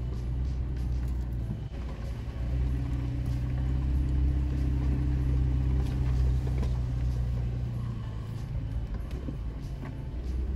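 Toyota Tacoma's engine crawling in four-wheel low with the rear differential locked, heard from inside the cab as a steady low hum that grows louder for several seconds in the middle, with scattered knocks and rattles from the truck working over a rocky trail.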